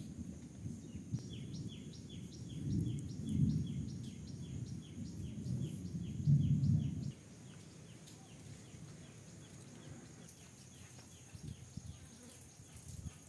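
A small bird calling in a fast, even series of short, high, down-slurred chirps, about three a second. Under the first half runs a low rumble that cuts off suddenly about seven seconds in.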